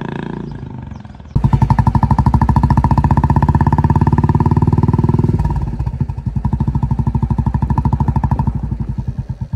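Royal Enfield Bullet 350's single-cylinder engine through a Foldez premium Indori aftermarket silencer. At first it fades as the bike rides away, then it is heard close up at the silencer, loud and thumping in a steady "dug dug" beat. It drops to a lower level about halfway through.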